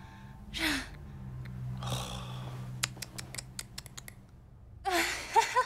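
A quick run of about ten light clicks, a finger tapping on a wristwatch, after two short breathy rushes of noise. A voice starts near the end.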